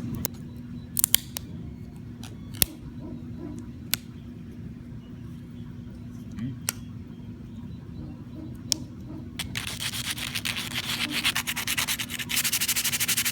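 Scattered sharp clicks and snaps as support material is picked off a 3D-printed plastic mini skateboard deck. About nine seconds in, sandpaper starts rubbing on the deck in rapid back-and-forth strokes, louder near the end.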